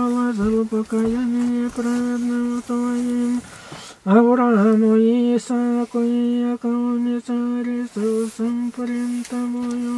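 An old woman's voice chanting a prayer almost on one note, in short syllables with brief breaks, stopping for breath about three and a half seconds in before going on.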